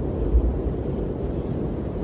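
Strong wind blowing as a steady low rumble, with a brief louder gust about half a second in.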